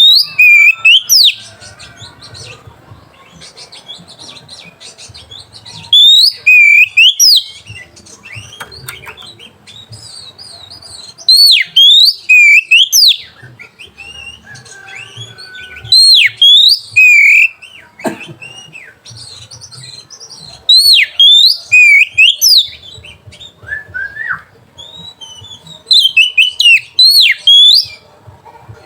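Oriental magpie-robin singing: six loud bursts of quick, sweeping whistled phrases, each about a second and a half long, coming roughly every five seconds.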